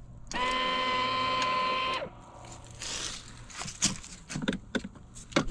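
Electric motor of a 24V kids' ride-on UTV whirring steadily for under two seconds, then dropping in pitch as it winds down and stops, followed by a few faint clicks.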